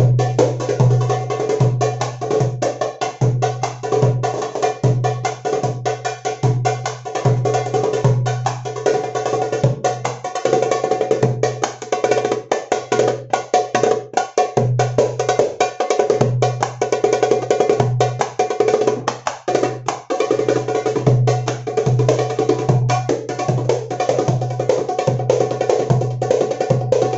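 Egyptian darbuka (tabla) playing fast, dense strokes over backing music with a pulsing bass and a sustained melody line.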